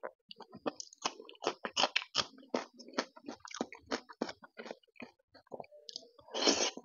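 Close-up eating sounds: a rapid string of short wet smacks and squishes as rice and taro root curry are mixed by hand and chewed, with a longer, louder burst near the end as a handful goes into the mouth.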